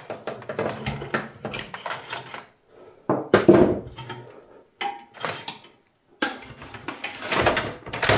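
Side cutters snipping power-supply wires inside a steel desktop PC case, then the cut wiring and power supply being pulled out: a run of clicks, rattles and metal clatter in several separate bursts, the longest near the end.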